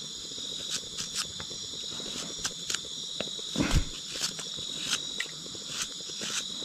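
Steady high chirring of a night insect chorus from the oil palm plantation. Over it come small sharp clicks of a paring knife working on a shallot close to the microphone, and one dull bump about three and a half seconds in.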